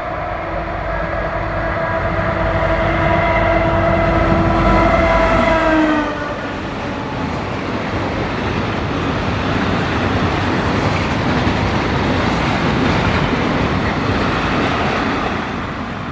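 Locomotive horn sounding a long chord-like blast as a greeting, its pitch dropping about six seconds in as the locomotive passes. Then a steady rumble and clatter of loaded timber wagons rolling past on the track.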